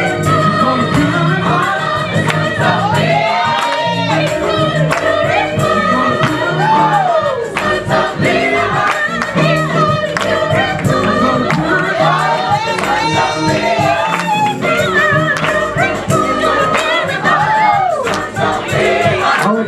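Gospel choir singing with instrumental accompaniment and a steady percussion beat; the sung lines swoop and waver in pitch.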